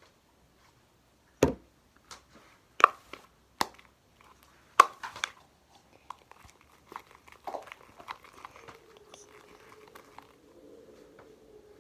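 Fluffy slime being kneaded and stretched by hand, making irregular sharp pops, squelches and crackles. In the last few seconds a faint, steady, wavering whine sounds under it.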